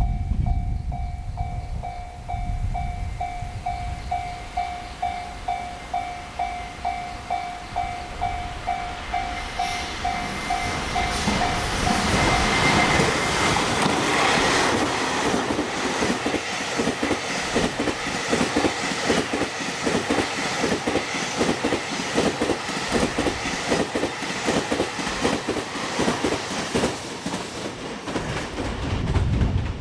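A level-crossing warning bell dings about twice a second over a low rumble. Then, from about ten seconds in, a freight train's wheels clatter loudly and rhythmically over the rail joints, drowning out the bell.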